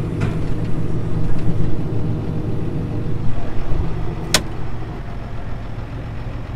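Farm vehicle engine running steadily at a low idle-like drone, with a single sharp click about four seconds in.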